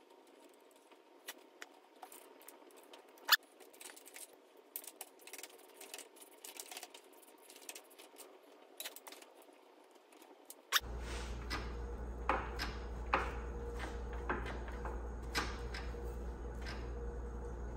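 Scattered light metallic clicks and taps of a hand wrench working the steering brake band and adjustment bolts on a John Deere 450 dozer. About eleven seconds in, a steady low hum comes up underneath the clicks.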